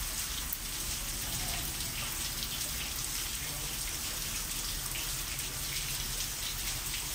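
Wet patter and sloshing of whey as hands press curdled chhena in a muslin cloth, squeezing the sour water out. A low steady hum runs underneath.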